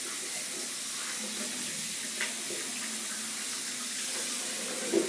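Tap water running steadily into a sink, with a few light knocks, as a shaving brush and lather bowl are rinsed clean.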